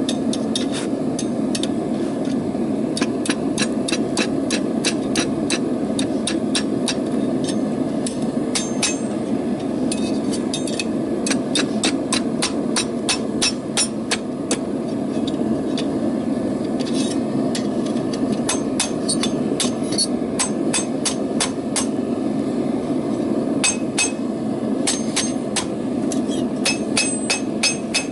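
Hammer striking hot rebar on an anvil in steady runs of about two to three blows a second, pausing a few times. A steady low rushing noise runs underneath.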